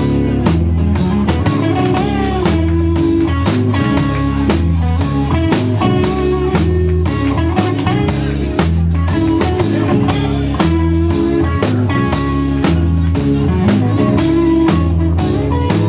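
Live band playing an instrumental passage with a steady beat: drum kit, electric guitar, acoustic guitar and bass guitar together.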